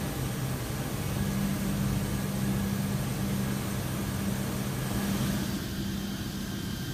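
Steady drone of a C-17 Globemaster III's engines heard from inside its cargo hold, a low hum over a wide rush of noise that thins out a little near the end.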